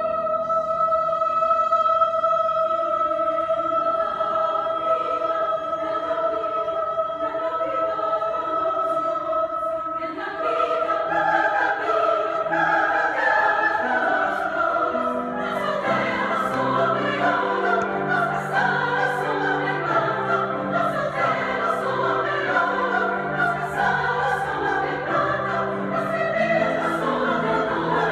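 Choir singing with grand piano accompaniment: a long held note opens into fuller moving part-singing about ten seconds in, with lower notes joining a few seconds later.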